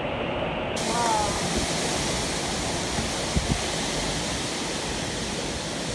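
Storm wind rushing through bending trees, a steady noise that turns fuller and brighter about a second in.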